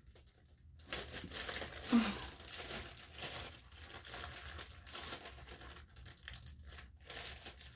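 Packaging crinkling and rustling as it is handled and pulled open during a monitor unboxing, steady and fairly quiet.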